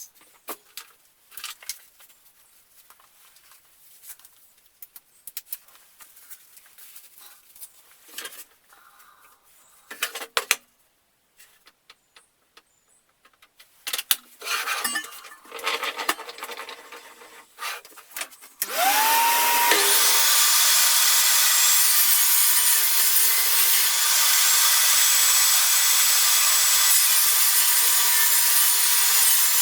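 Scattered knocks and handling of wood and tools, then about two-thirds of the way through an electric power tool starts up with a rising whine and runs steadily on wood.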